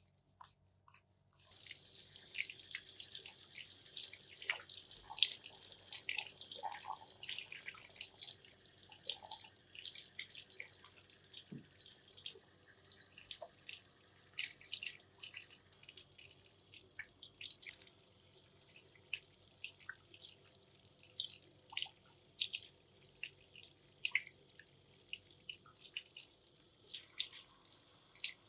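Tap water running from a gooseneck faucet into a ceramic basin and splashing as hands scrub soapy feet. The steady stream starts about a second and a half in, and after about 16 s it gives way to scattered splashes and drips.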